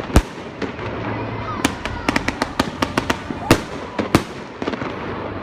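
Fireworks display: sharp bangs of shells bursting, with a quick run of reports about two to three seconds in and single bangs around it, over a steady background hum of crowd noise.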